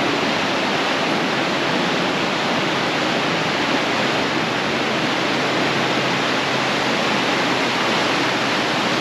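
Rushing water of a fast-flowing river, a steady, even rush with no change.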